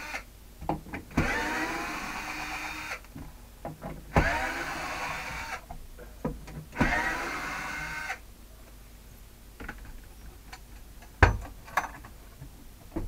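A cordless drill/driver runs in three bursts of about a second and a half, each rising in pitch as it spins up, removing the screws that hold a small wooden box in place. After that come scattered knocks and clicks as the box is worked loose, with one sharp knock near the end.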